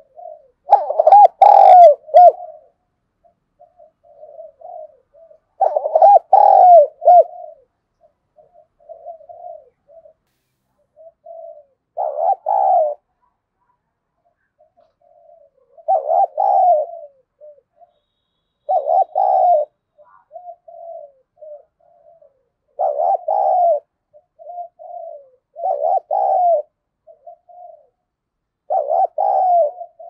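Spotted dove cooing over and over: about eight loud phrases, one every three to five seconds, with softer short coos in between. It is the fast challenge cooing of a male calling to provoke rivals.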